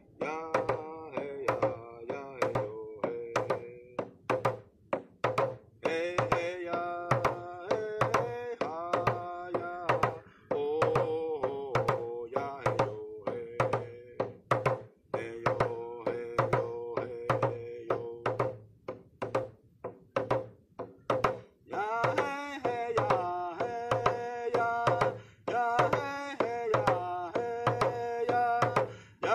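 A hand drum beaten at a steady beat of about two strokes a second, with a voice singing a round dance song over it in long held notes. The singing breaks between phrases while the drumbeat keeps going.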